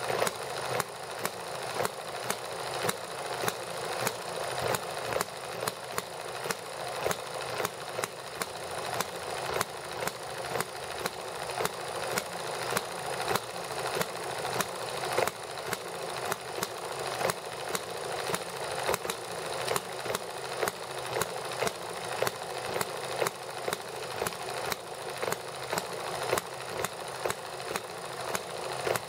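Small horizontal hit-and-miss model gasoline engine running, with a sharp firing pop roughly every two-thirds of a second over a steady mechanical clatter.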